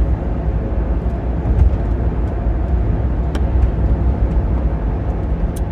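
Steady low rumble of a car's engine and road noise heard inside the cabin while driving, with a few faint clicks.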